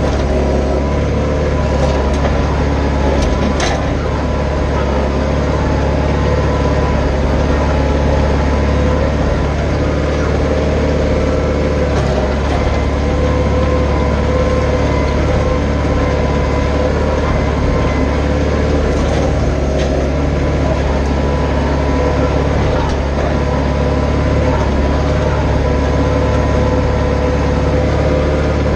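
Branson 4520 compact tractor's diesel engine running steadily under load as it pulls a box blade through dirt, its pitch level throughout.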